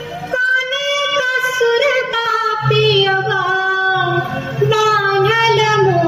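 A woman's voice singing a Bihari Dom Kachh folk song, a bending, held melody, with a low steady accompaniment tone joining about two and a half seconds in.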